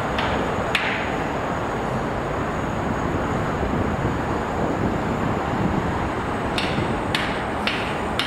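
Steady rumble of road traffic, with a run of sharp, evenly spaced knocks about two a second, once right at the start and again from about two-thirds of the way in, like hammer blows on metal.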